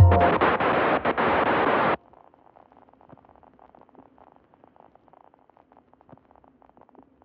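A loud burst of static hiss with a few clicks closes a lo-fi hip hop track and cuts off suddenly about two seconds in. After that, only faint crackling and clicks remain.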